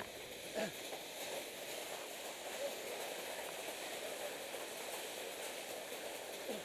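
Runners' shoes crunching and scrabbling on a loose gravel pile as they climb it on hands and feet, with voices in the background.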